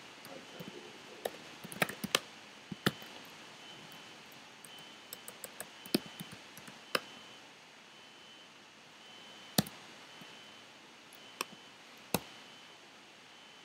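Computer keyboard keystrokes and clicks, sparse and irregular, some in quick little runs, as code is edited and a command is typed.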